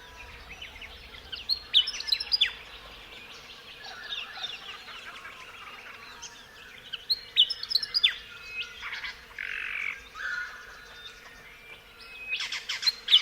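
Birds chirping and tweeting, short high calls coming in scattered bursts.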